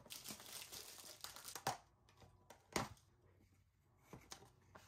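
Paper and cardboard rustling as a box of black tea bags is handled and opened, followed by a few sharp taps, the loudest about three seconds in.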